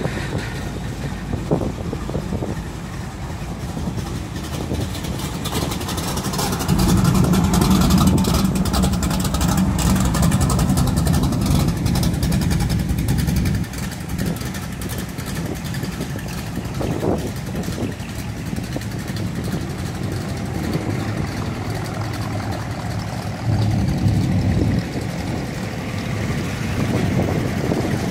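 Engines of classic cars and pickup trucks rumbling as they drive slowly past one after another. A deeper, louder engine dominates from about a quarter of the way in until it drops away sharply near the middle, and another swells briefly near the end.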